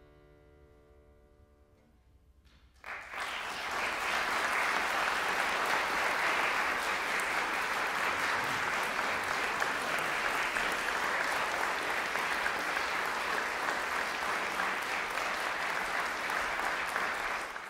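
The last harpsichord chord rings away, then audience applause starts about three seconds in and carries on steadily.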